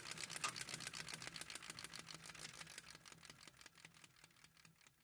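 A faint, fast, even clicking, about ten clicks a second, fading away over several seconds, with a faint low hum beneath it.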